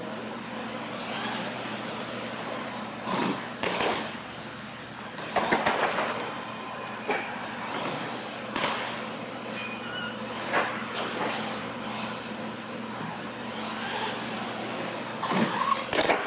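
Radio-controlled monster trucks driving on a concrete floor: steady motor and tyre noise, broken by several sharp clatters as the trucks bang down on the floor and ramps, with a cluster of them near the end.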